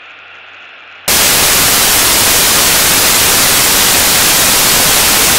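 Faint outdoor background with a low hum, then about a second in a sudden switch to loud, steady static hiss that covers all pitches evenly.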